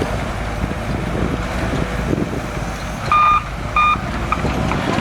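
Shantui DH17C2 bulldozer's diesel engine running steadily, and its reversing alarm beeps twice, about three seconds in, two short high tones: the dozer is backing up.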